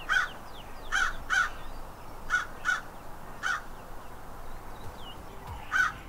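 A crow cawing: about seven short, harsh caws, several coming in pairs, with a longer gap before the last one near the end. Faint calls of smaller birds sound in the background.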